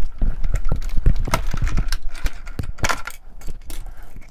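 Die-cutting machine cutting a balloon shape out of paper with a die, giving a run of irregular clicks and knocks.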